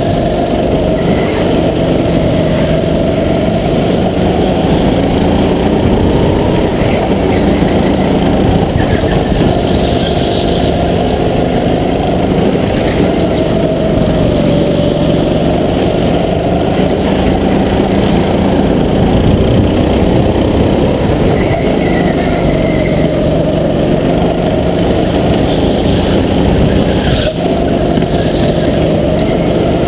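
Racing go-kart running hard, heard from the driver's helmet. Its pitch rises and falls as it slows for corners and speeds up on the straights, over a steady rush of noise.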